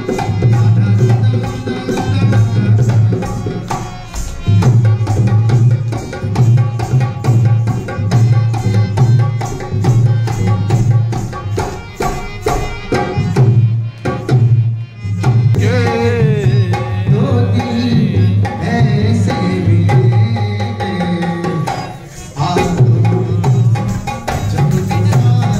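Live Rajasthani folk music: a double-headed hand drum plays a fast, steady rhythm over sustained harmonium tones, and a man sings in the middle stretch.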